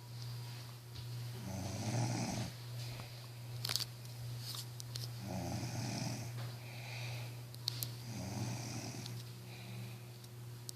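Slow, regular snoring, one snore about every three seconds, over a steady low hum.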